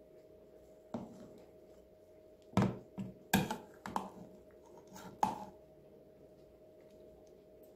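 A metal cake server knocking and scraping against a plastic dish while a portion of pudding is cut loose and lifted out: about seven sharp clicks and knocks, the loudest in the middle, over a faint steady hum.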